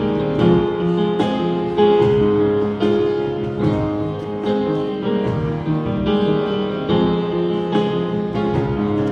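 Slow piano music: sustained chords struck about once a second, an instrumental introduction.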